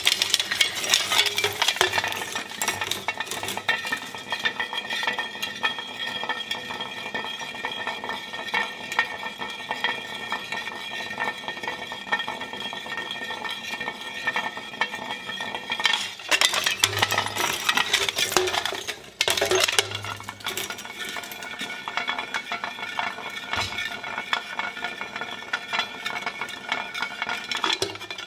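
A shredder running with a steady motor whine while its cutters grind through hard material, with dense crackling and clinking throughout. The grinding gets louder and busier about sixteen seconds in, then settles again.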